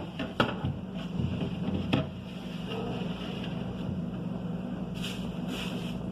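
Groceries being handled while being put away: a sharp knock about half a second in, another about two seconds in, and brief rustles near the end, over a steady low hum.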